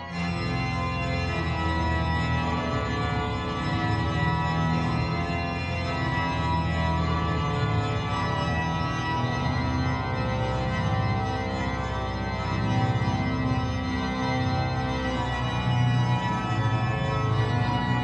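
Organ music: slow, sustained chords with a strong bass line.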